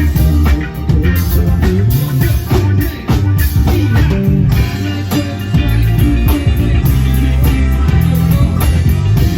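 Rock music with electric guitar, bass and drum kit playing at a steady beat.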